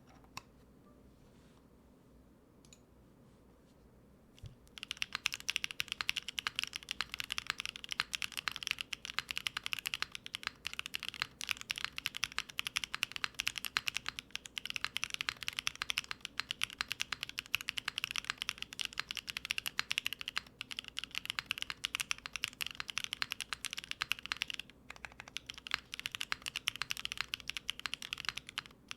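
Typing on a Neo70 gasket-mount mechanical keyboard with factory-lubed BSUN Sakura linear switches, an aluminium plate, GMK keycaps and no foam. After a few quiet seconds with one or two single key taps, about four and a half seconds in it breaks into a fast, dense stream of keystrokes, with one brief pause near the end.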